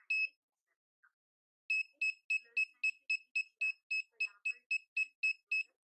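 Arduino-driven buzzer of an ultrasonic distance alarm beeping at one high pitch. After a single beep there is a pause of about a second and a half, then short beeps come about four times a second. The fast beeping is the alarm's sign that an object, here a hand, is close to the sensor.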